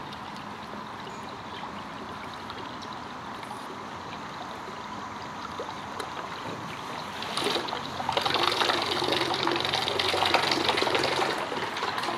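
Water trickling and gurgling around an aluminum canoe's hull as it moves under a small electric trolling motor. The water sound grows louder about eight seconds in.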